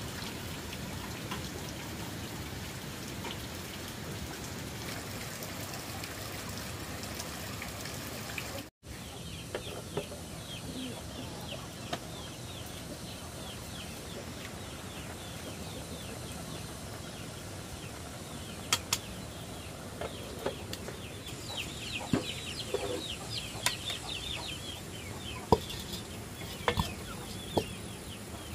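A steady noise for about the first nine seconds, then chickens clucking in rapid, short high calls that grow busier toward the end, with several sharp knocks in the last few seconds.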